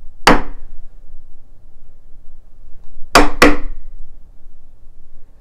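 Claw hammer striking a wood chisel held against the edge of a door, scoring the ends of a hinge mortise. One sharp blow comes about a quarter second in, then two quick blows just after three seconds in, each with a brief ring.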